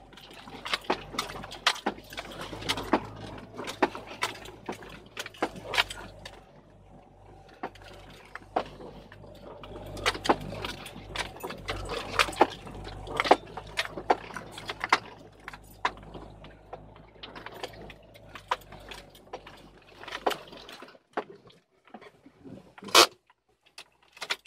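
Footsteps on dry ground and leaves while walking uphill: an uneven series of crisp steps, about one or two a second, over a low steady rumble that stops near the end, with one sharper knock just before the end.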